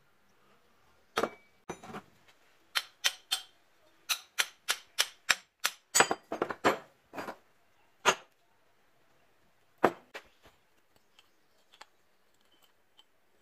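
Hammer blows on a rusty steel tube housing, knocking its end flanges loose: a run of sharp metallic knocks in irregular groups, quickest at about three a second in the middle, thinning to a few single blows near the end.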